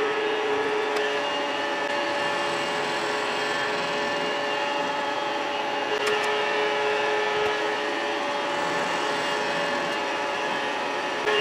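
Vertical milling machine running with its cutter milling flats on a part held in the vise: a steady mechanical hum, with one tone that drops out for a few seconds in the middle and comes back.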